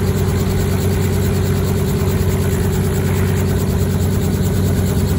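Robinson R44 helicopter running on the ground at idle: a steady, loud piston-engine drone while the main rotor turns slowly.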